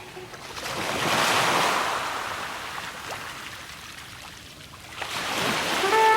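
Ocean surf: a wash of breaking waves that swells up about a second in, fades away, then builds again near the end.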